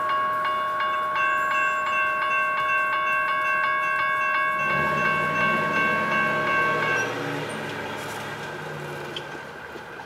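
General Signals Type 1 electronic crossing bell ringing with quick regular strokes, about four a second, while the crossing gates rise; it stops about seven seconds in. From about halfway a car's engine passes through the crossing and fades.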